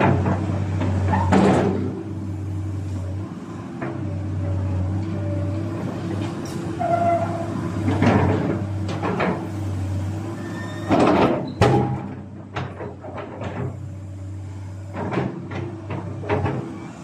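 Komatsu PC200 excavator's diesel engine running at a steady idle, with several sharp knocks and clanks from the machine.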